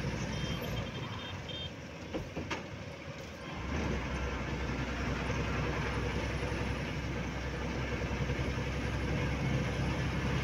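Truck engine and road noise heard from inside the cab of a moving trailer truck. The low rumble drops away for a couple of seconds and comes back strongly a little under four seconds in, with a couple of sharp clicks just before.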